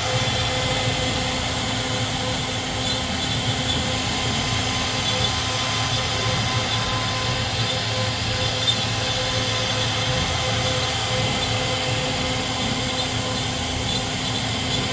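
CNC router carving wood: a steady whine with several fixed tones from the spindle over an even cutting noise, unchanging throughout.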